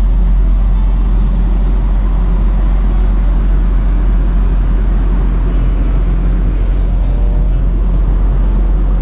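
Steady low rumble with an even hiss over it: the background noise on the open deck of the car ferry Hankyu Ferry Yamato at her berth.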